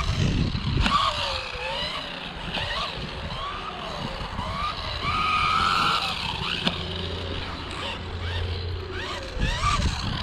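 Rlaarlo AMX12 1/12-scale electric RC buggy driving, its motor whine rising and falling in pitch as the throttle goes on and off, over tyre and ground noise.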